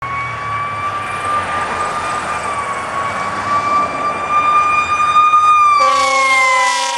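Fire engine siren held at a high, nearly steady pitch, then beginning to slide down in pitch near the end as a loud horn blasts over it. Road traffic noise underneath.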